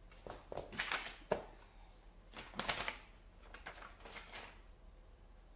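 A paper sheet rustling as it is handled, in three short bursts, with a sharp click about a second in.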